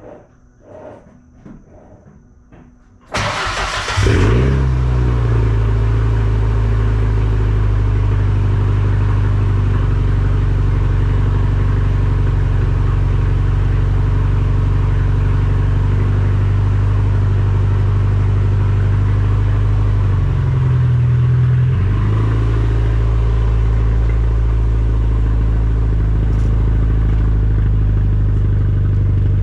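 1994 Ford Ranger's 2.3-litre inline four-cylinder cranked and started about three seconds in, then idling loud and steady with the exhaust open behind the catalytic converter, no muffler fitted. Its note wavers briefly about twenty seconds in.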